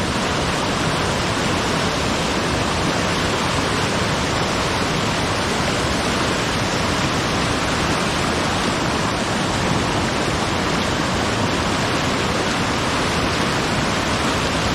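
Waterfall's falling water, a loud steady rush of noise with no breaks.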